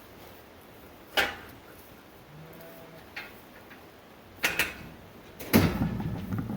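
Metal sheep chute being handled: a few sharp knocks and clanks, the loudest near the end followed by about a second of rattling.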